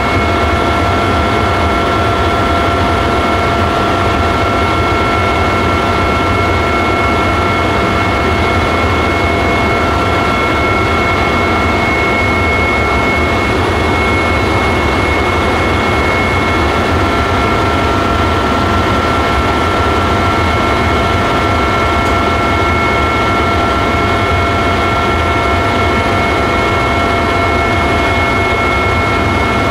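Helicopter in flight heard from aboard: a loud, steady engine and rotor drone with a constant high whine on top.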